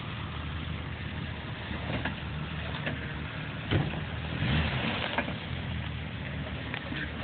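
Jeep Cherokee engine running at low revs, with a few sharp knocks, the loudest a little under four seconds in.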